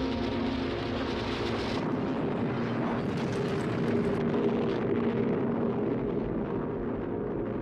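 Film sound effects of a city being destroyed: a steady, dense rumble of debris and collapsing buildings. A low, steady droning tone runs underneath.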